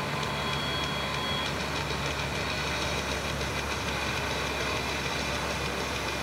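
A steady, low engine hum from a running vehicle.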